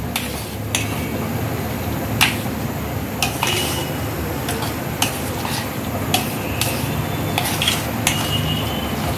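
A metal spoon stirring and mashing thick cooked toor dal with raw mango in a metal bowl, clinking irregularly against the bowl's sides and bottom. A few strikes ring briefly.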